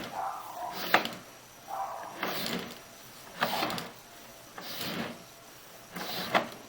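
Sewer inspection camera push cable being fed by hand into a drain cleanout in repeated strokes: a scraping swish with a sharp click about every second and a quarter.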